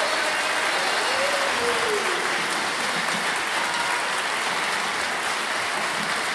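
Audience applauding steadily, with a faint call from the crowd about one to two seconds in.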